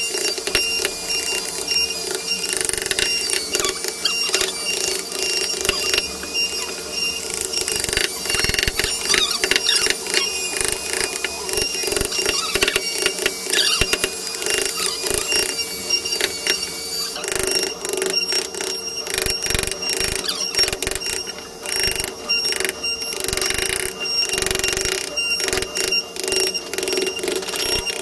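A wooden mallet tapping a carving chisel again and again as the blade cuts into wood, with a steady high tone underneath.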